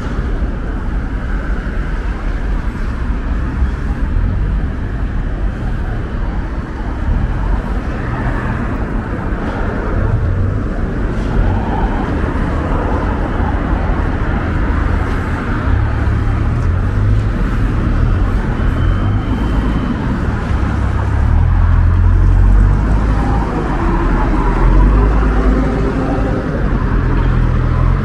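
Street traffic ambience: a steady wash of passing cars, with a deep rumble that swells a few times in the second half.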